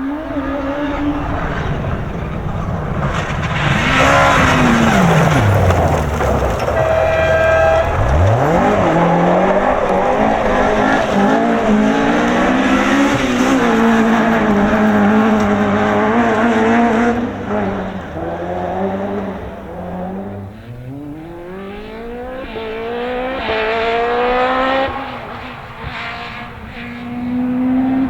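Rally car engines at high revs on a special stage. The pitch falls as a car passes about four seconds in, then loud hard running follows. Near the end a car accelerates through the gears, its revs climbing in repeated rising steps.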